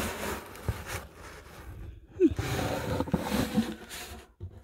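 Objects being handled and shifted while rummaging through stored household items: scattered light knocks, scrapes and rustling, irregular and without any steady source.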